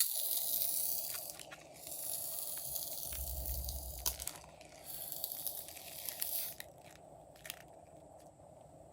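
Fluffy slime being worked by hand, with soft crackling, squishing and small sticky clicks; it quietens near the end.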